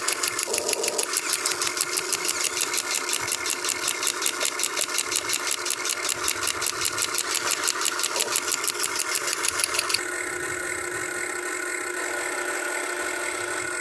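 Concrete breaker attachment on a Huina 1580 RC excavator hammering in a fast, even rhythm of about six blows a second. The hammering stops about ten seconds in, leaving a steady motor hum.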